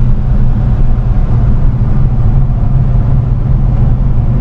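Steady low rumble of a vehicle driving along: engine and road noise with no sudden events.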